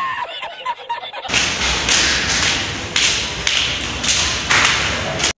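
A man laughing for about a second, then a few seconds of loud rustling and thumping as the phone is handled and swung about close to its microphone, ending in a sudden cut.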